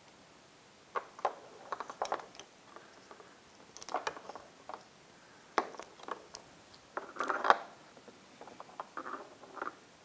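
Fingers peeling and picking the electrical tape wrapped around a wiring harness, giving scattered small crackles, clicks and rustles, with a slightly longer rustle about seven seconds in.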